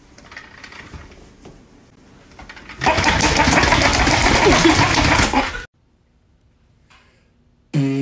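A motorized toy duck rattling loudly for about three seconds, then cutting off. Just before the end an electric hair clipper starts with a steady buzz.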